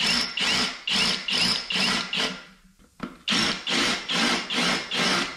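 Cordless drill spinning a center-pointed, flat-bottomed spot-facing bit into an LS engine block, cutting a flat seat around a tapped cam-bearing pin hole. The trigger is blipped in short bursts, about three a second, with a half-second pause just past the middle.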